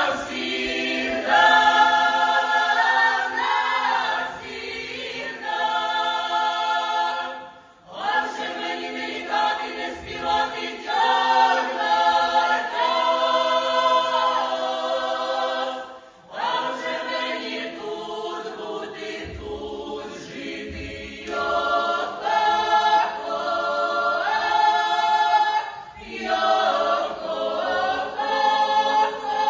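Folk choir singing an old Ukrainian kant a cappella, several voices in harmony with no instruments. The phrases break off briefly three times, for a breath between lines.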